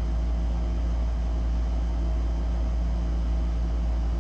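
Steady low machine hum, with a deep drone and a faint steady tone above it, running evenly without change.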